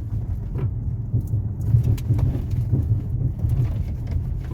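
Ford Fusion rolling over a potholed road with the brake released: a steady low cabin rumble with irregular short knocks from the front end. The knocking goes away when the brake is applied; the mechanic traces it to the driver's-side front brake, suspecting the caliper.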